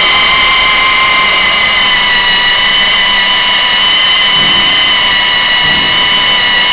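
Magnetic-base drill's electric motor running at steady speed with a constant high-pitched whine.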